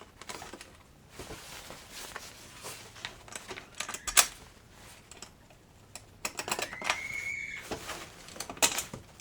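Irregular clicks and clatter of hand tools and plastic body panels being handled during ATV reassembly, with one sharp click about four seconds in and a brief rising squeak a little after seven seconds.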